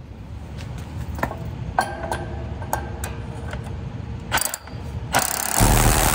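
Scattered clicks over a low hum, then about five seconds in a Milwaukee cordless drill with a 3/8-inch masonry bit starts boring into the concrete floor through the air compressor's foot: a loud, steady drilling noise, the hole for a wedge anchor.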